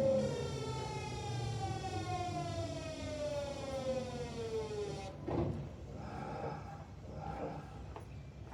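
VVVF traction inverter of a Kintetsu 1026-series train whining as a stack of tones that falls steadily in pitch under regenerative braking, then cuts off suddenly about five seconds in, leaving quieter knocks and rattles as the train comes to a stop. This set's inverter is reported to give an unusual hoarse, growling noise under regenerative braking.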